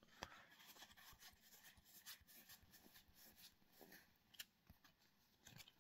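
Faint handling of trading cards: soft, irregular clicks and rustles as cards are slid and flipped through.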